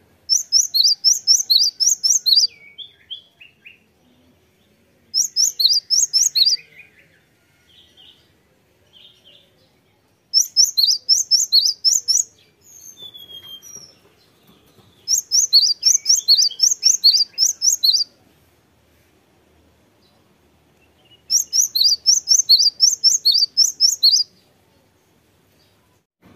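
Cinereous tit (gelatik batu) singing: five bursts of rapid, high, repeated notes, each about two seconds long, with a few soft calls between them.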